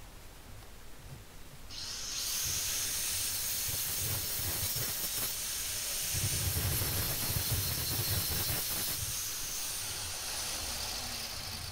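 Makita angle grinder switched on about two seconds in and running steadily while it grinds the burrs off the edge of a small freshly drilled metal repair piece.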